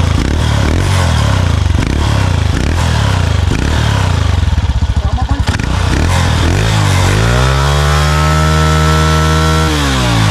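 Honda TMX 155 single-cylinder four-stroke motorcycle engine running through an open stainless 'chicken pipe' exhaust, pulsing at low revs, then revving up about two-thirds of the way in, holding the high revs for a couple of seconds and dropping back near the end.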